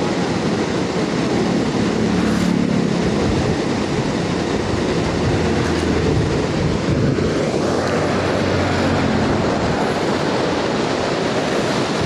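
Fast river water rushing and churning in white water over and around a stone weir: a steady, loud, even rush.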